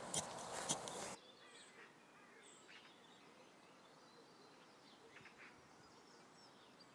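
Hand trowel digging into soil, scraping with two sharp knocks, cut off about a second in; after that, faint scattered bird chirps.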